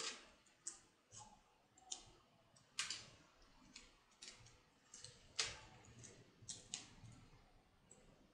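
Faint, irregular crisp clicks and rustles of stiff drawing-paper strips being handled and pressed together while being glued with a glue stick, about a dozen scattered over several seconds.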